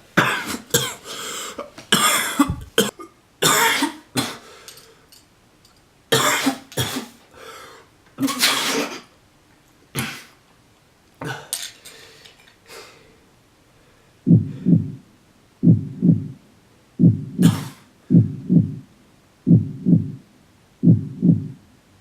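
A person coughing and hacking in harsh, irregular fits. About two-thirds of the way through the coughing stops and gives way to about a dozen short, low, muffled pulses at an even, steady beat.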